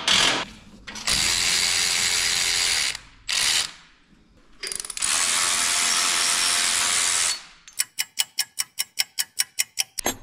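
Impact gun running in two bursts of about two seconds each, with a short burst between them, tightening the engine-mount bolts. Near the end a ratchet clicks quickly, about eight clicks a second.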